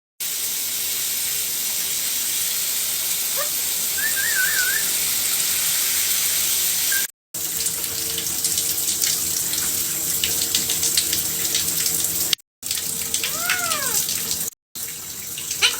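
Shower water running and spraying steadily, with a short warbling chirp about four seconds in and a brief rising-and-falling call later on. The sound cuts out completely three times for a fraction of a second.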